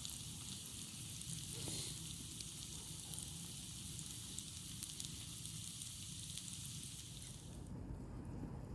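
Food sizzling and crackling in a hot frying pan, a steady hissing frying sound that cuts off abruptly near the end.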